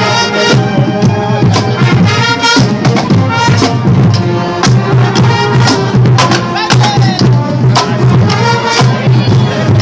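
Loud live-sounding music with a steady drum beat under held, horn-like pitched notes.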